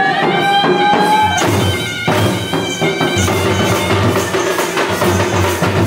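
Raut Nacha folk music: a reed pipe holds one long, slightly rising note, then drums come in about a second in and beat a steady rhythm under it.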